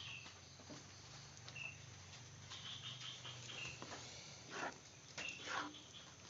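Spatula stirring and scraping thick durian dodol paste in a pan, with a few louder scrapes in the last two seconds. Faint short high chirps and a low hum sit underneath.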